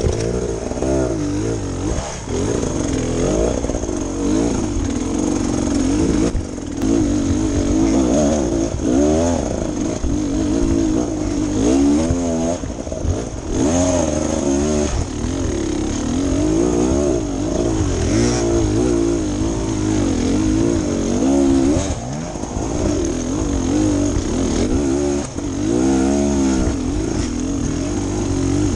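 Beta Xtrainer 300 two-stroke single-cylinder dirt bike engine working under load on a steep rocky climb, the revs rising and falling again and again as the throttle is worked.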